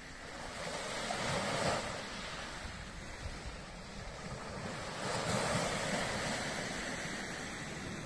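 Sea surf: waves breaking and washing on the shore, swelling twice, about a second and a half in and again about five seconds in.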